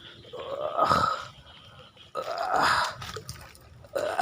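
A man's voice makes two grunt-like exclamations without words, one about a second in and another around two and a half seconds in, as he hauls in a hooked catch.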